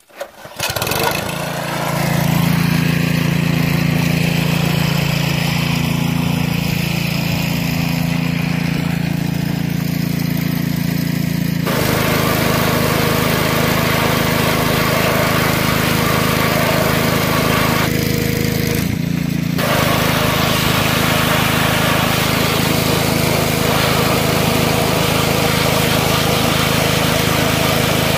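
Small gas-engine pressure washer running steadily, with the hiss of its high-pressure water spray.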